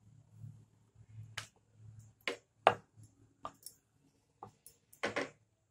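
Short, sharp clicks and taps at uneven intervals as hands fold and press paratha dough on a wooden rolling board, over a faint low hum.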